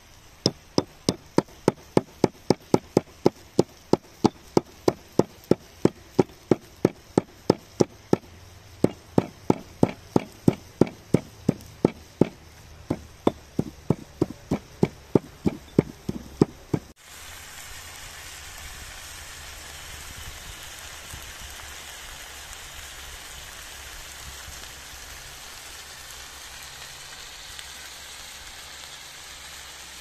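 A stone pestle striking in a stone mortar, crushing pink salt with steady blows about two to three a second. About seventeen seconds in, this cuts off abruptly and gives way to a steady sizzle of lamb liver, heart and red pepper frying in a pan.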